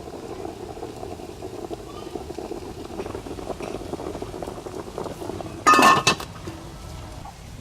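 Liquid bubbling at a steady boil in a cooking pot, with a loud metallic clatter about six seconds in, like a metal utensil or lid striking the pot.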